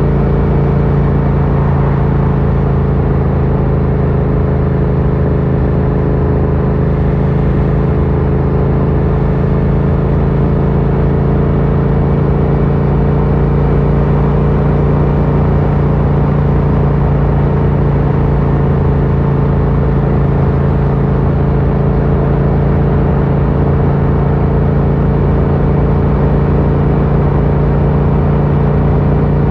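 Yamaha MT-07's 689 cc parallel-twin engine running through an Akrapovic carbon full exhaust, holding steady revs with an even, unchanging pitch and no pops or crackles.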